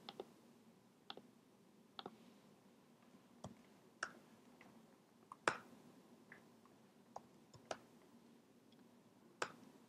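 Scattered single clicks of a computer mouse and keyboard, about ten at irregular intervals, with near silence between them.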